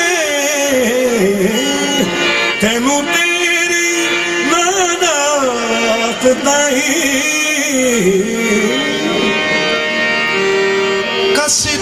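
Qawwali singing: a lead voice drawing out long, wavering melismatic phrases over instrumental accompaniment.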